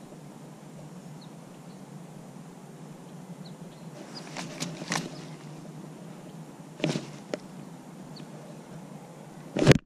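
Close handling noise from fishing with a baitcasting rod and reel: a steady low rumble, with a few sharp clicks and knocks in the middle as the jerkbait is worked. Near the end comes a loud rub of a jacket sleeve against the microphone, which cuts off abruptly.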